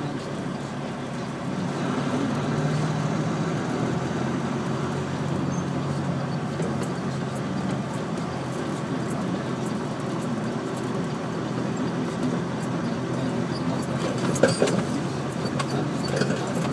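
Heavy machinery engine running steadily while a drilling rig is moved, with a sharp clank about fourteen seconds in.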